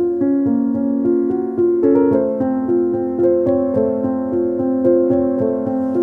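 Background piano music, a steady run of notes with a chord change about two seconds in.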